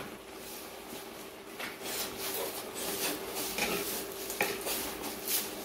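Metal skimmer scraping and patting over rice in a kazan to level it, giving scattered short scrapes and taps of metal on rice and pot, over a faint steady hum.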